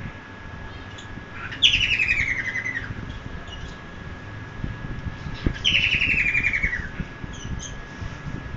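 A cockatiel giving two long calls about four seconds apart, each starting high and sliding down in pitch with a buzzy, rapidly pulsed texture.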